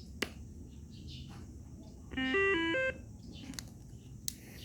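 A click, then about two seconds in a quick run of short stepped electronic beeps from a Motorola CP1660 VHF handheld radio, a little melody of five or six notes lasting under a second.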